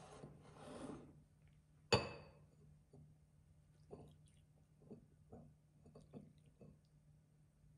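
Milk poured from a small ceramic jug into a ceramic bowl: one sharp clink of ceramic about two seconds in, then faint drips and small splashes.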